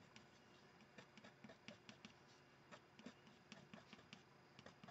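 Faint scratching of an oil-based Faber-Castell Polychromos colored pencil on watercolor paper, laying in short, irregular fur strokes.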